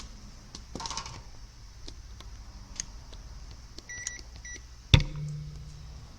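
Multimeter continuity beeper giving two short beeps about four seconds in as the probes touch a MOSFET's legs on a power-supply board. A sharp knock about five seconds in is the loudest sound, and small probe clicks are scattered throughout.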